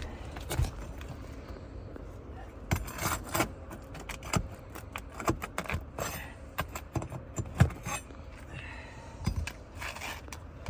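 Asphalt roof shingles crunching and cracking, with irregular clicks, knocks and scrapes, as a shingle is pressed and pried up to work its nails out. The cracking is the brittle shingles breaking as they are handled.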